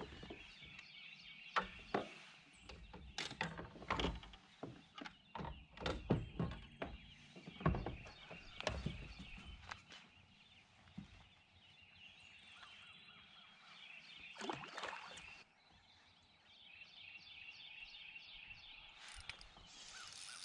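Birds calling steadily in the background, with a run of sharp knocks and clicks from tackle being handled in a kayak over the first ten seconds and a few more about fifteen seconds in.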